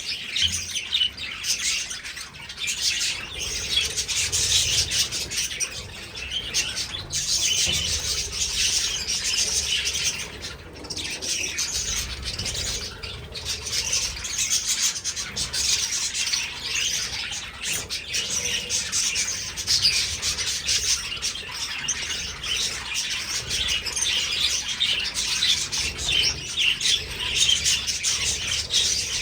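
A flock of budgerigars chattering and chirping nonstop, many birds calling over one another.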